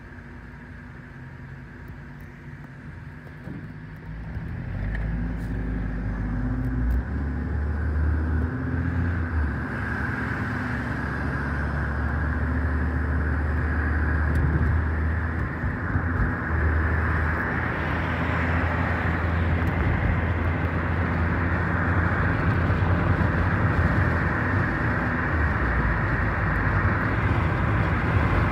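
Car pulling away and driving on: about four seconds in the engine and road noise build up, then settle into steady driving noise. A low engine hum steps in pitch a few times under a rising rush of tyres and wind.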